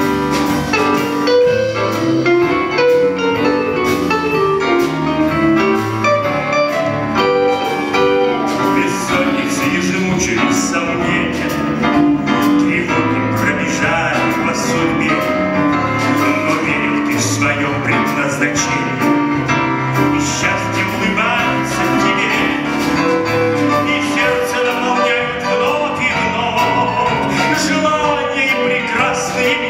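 A man singing a song live with a small band of piano, electric guitar and drum kit playing along.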